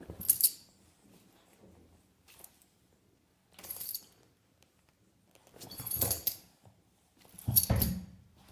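A Boston terrier and a kitten play-wrestling on a pile of towels: four short bursts of rustling and scuffling with quiet gaps between them.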